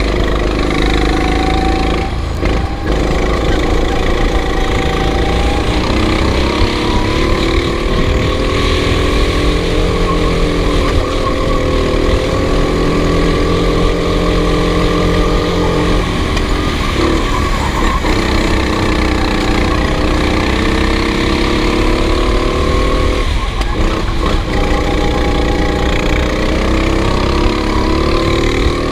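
Small racing engines running at high revs on a circuit, their pitch rising and falling as the throttle opens and closes through the corners, with brief lifts about 2, 16 and 23 seconds in.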